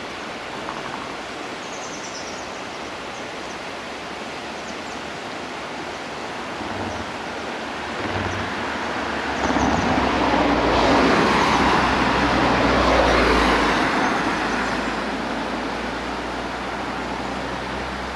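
A road vehicle passes, swelling up over a few seconds about halfway through and fading away again, over a steady rushing background.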